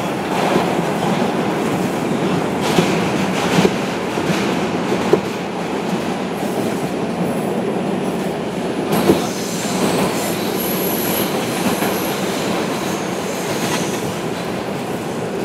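Inside an R142 subway car running through the tunnel: a steady rumble of steel wheels on rail with a few sharp clacks over rail joints, and a brief high wheel squeal about ten seconds in.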